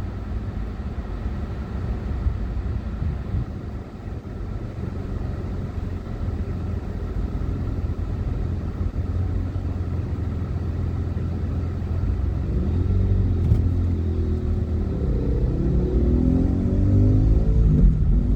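Steady low rumble of a car driving, heard from inside the cabin. Over roughly the last five seconds a nearby motorcycle accelerates, its engine note rising and falling as it revs.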